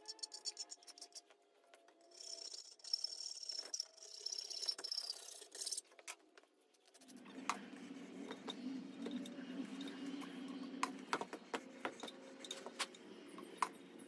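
Metal scraping and rubbing at a bench vise: a file on the end of a forged iron screw blank, then a threading die being turned onto it, with scattered sharp clicks. A steady low hum comes in about halfway.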